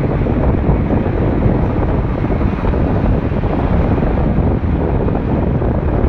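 Steady rush of wind on the microphone, mixed with the road and engine noise of a moving car, heard from inside it.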